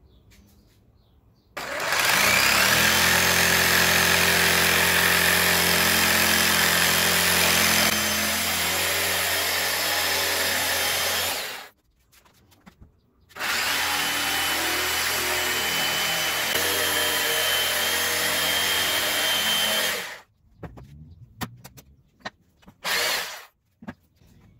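Electric jigsaw cutting a triangular notch through two clamped one-inch pine boards at once, running steadily in two long cuts of about ten and seven seconds with a short stop between. Near the end come a few knocks and one brief burst.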